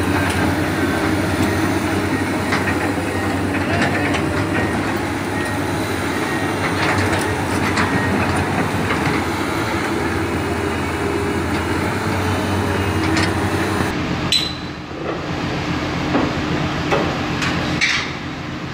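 Hydraulic excavators' diesel engines running steadily under load, with scattered metallic clanks. About 14 seconds in the sound cuts abruptly to another excavator running, with a few sharp knocks.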